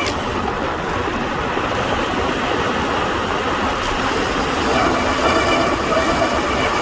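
Rushing wind and tyre noise from a road bike descending fast, with a faint whine from the disc brakes that fades and then returns about two thirds of the way through.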